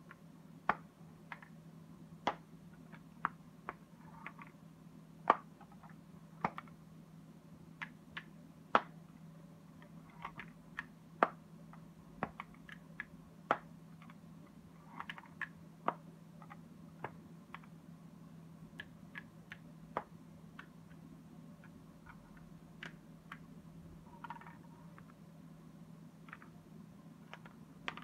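Wooden Japanese yosegi marquetry puzzle box being worked by hand: its sliding panels knock and click into place in irregular sharp wooden clicks, with a few brief soft scrapes as panels slide.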